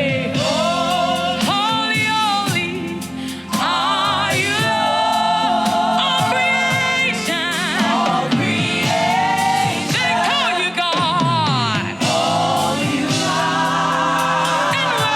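Gospel praise and worship music: a voice singing with vibrato and melodic runs over instrumental backing.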